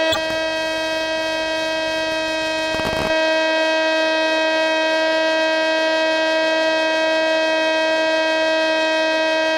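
A steady, unchanging buzzy whine with many overtones, received over the FPV plane's video-link audio. A short burst of static about three seconds in, after which it is slightly louder.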